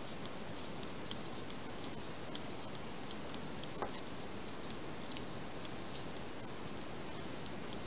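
Knitting needles clicking against each other as stitches are worked: irregular light clicks, roughly one or two a second, over a steady hiss.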